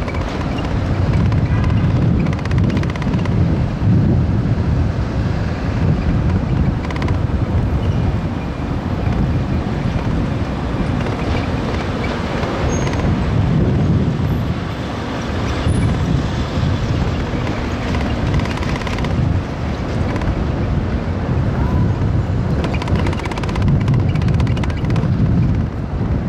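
Wind buffeting the microphone over city street traffic noise: a loud, uneven low rumble with no clear single event.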